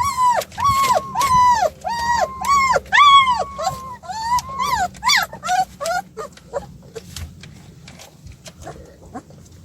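Puppies whining and yelping in a rapid run of high-pitched, arching cries, about two or three a second. The cries fade out about halfway through, leaving faint clicks and scuffles.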